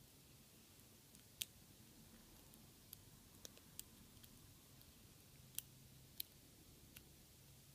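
Faint, irregular clicks of a lock pick working the pins inside a brass Yale Y110/40 padlock held under tension: single pin picking, about seven sharp ticks spread over several seconds.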